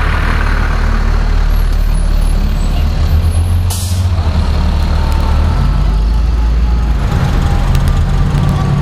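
Heavy fire engines' diesel engines rumbling as they pass in procession. A short, sharp air-brake hiss sounds about four seconds in.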